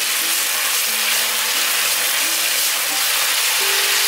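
Vegetable sauce with green peppers sizzling in a hot pan as it is stir-fried: a steady, even hiss.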